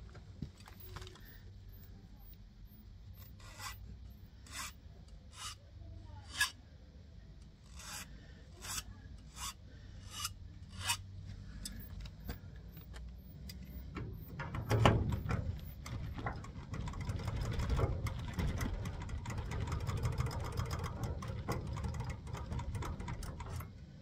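Hand file scraping a key blank held in locking pliers, filing down the marks left while impressioning a key to a lock. Single strokes come about every three-quarters of a second at first, then about halfway through the filing turns faster and louder.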